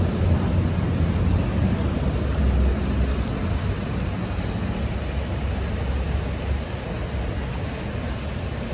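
Steady low vehicle rumble, easing off about two-thirds of the way through.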